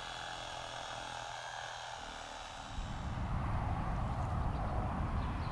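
Electric fillet knife motor buzzing steadily while it cuts through a kingfish, with a low rumble coming up about three seconds in.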